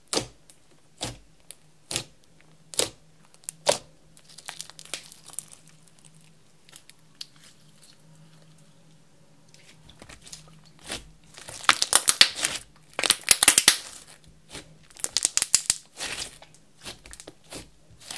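Hands poking, stretching and folding clear slime mixed with makeup and glitter: sharp pops about once a second at first, then dense bursts of crackling as the slime is pulled and folded, loudest a little past halfway.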